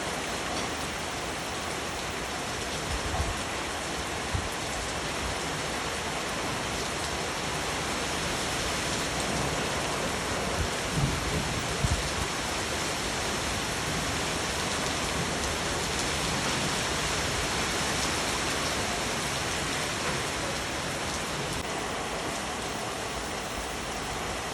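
Steady, heavy rain falling, an even hiss of many drops, with a few brief low thumps about three, four, eleven and twelve seconds in.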